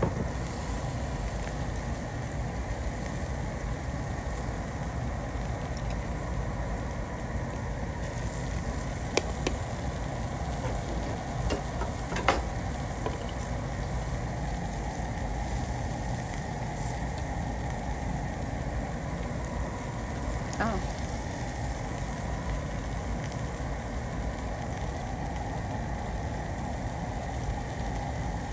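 Food sizzling on a barbecue grill, with a steady low rumble under it and a few sharp clicks.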